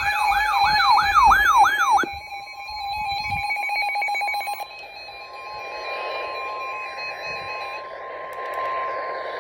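Electronic emergency alert signal: a loud warbling tone rising and falling about three times a second for about two seconds, then the steady single-pitched warning alarm tone of an EAS weather broadcast, with a rapid pulsing buzz under it for a couple of seconds and radio hiss later on.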